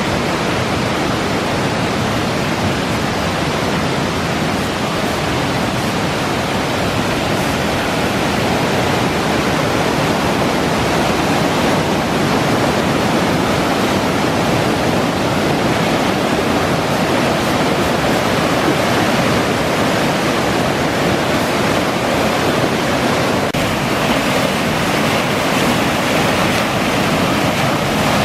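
Water of a mountain stream rushing steadily and loudly after a typhoon, with no let-up.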